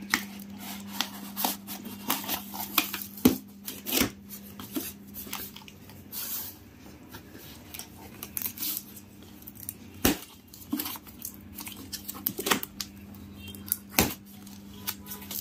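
Large scissors snipping and slicing through packing tape and cardboard on a TV box: irregular sharp clicks and tearing rasps, over a steady low hum.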